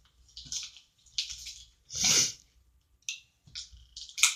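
Packaging rustling and crinkling in short, irregular bursts as skateboard parts are unwrapped and handled, with one louder, fuller burst about two seconds in.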